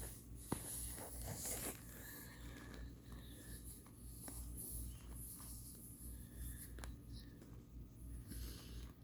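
Crunching and chewing of microwave-baked cornstarch chunks: scattered sharp crackles and short scratchy crunches over a low steady hum.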